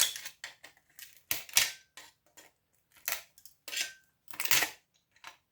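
Hand tools clicking and scraping against metal parts on a scrap power supply board as components are pried and pulled off: a handful of short, sharp scrapes and clicks, the louder ones about a second apart.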